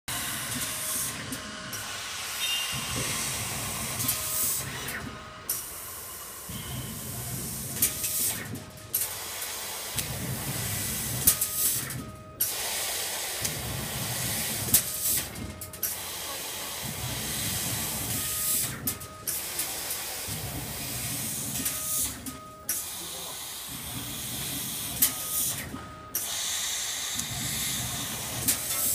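CO2 laser cutter cutting sheet metal: a steady hiss of assist gas at the cutting head over a low machine hum. The hiss breaks off briefly about every three and a half seconds, with a short tone around each break, as the machine works through a repeated cut.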